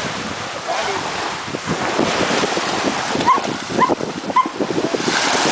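Small waves washing ashore with wind on the microphone, and about three seconds in, a dog's three short barks about half a second apart.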